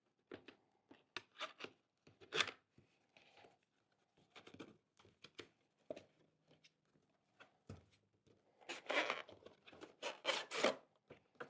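A product box being opened and handled: irregular rubbing, scraping and tearing of packaging, with a cluster of louder scrapes near the end.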